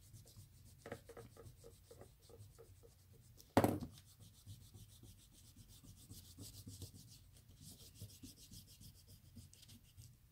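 Eraser rubbing on drawing paper in rapid back-and-forth strokes, taking out pencil lines, with one louder thump about three and a half seconds in.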